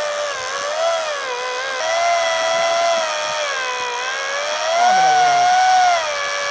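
Electric fishing reel motor whining as it winds in line under load, its pitch sagging and rising as the load changes and climbing slightly where it is loudest, about five seconds in.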